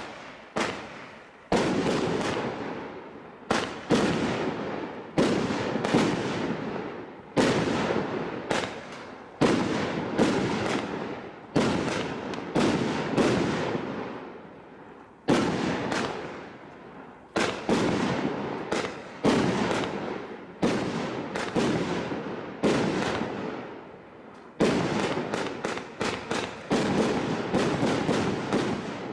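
A Thunder Strike barrage fireworks cake firing shot after shot, each bang followed by crackle trailing off. The shots come about every one to two seconds, quickening into a fast volley near the end.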